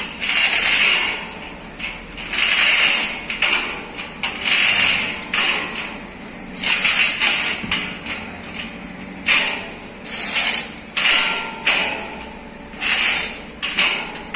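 Steel lifting chain of a hoist rattling in repeated bursts, roughly one a second, as a truck engine hanging on it is lowered.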